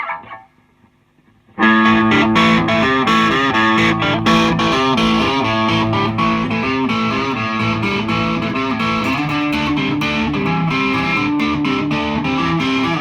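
Loud rock music led by a distorted electric guitar, starting abruptly about a second and a half in and playing a chugging, changing riff.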